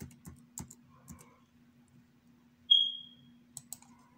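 Five quick computer key clicks in the first second, the typing of a number, then a single short high ding about two and a half seconds in that fades quickly, and two mouse clicks near the end, over a faint steady low hum.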